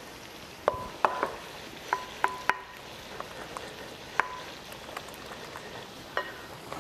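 Wooden spoon mixing eggs, cheese and parsley in a glass bowl: irregular clinks of the spoon against the glass, several leaving a brief ringing tone, over a faint steady hiss.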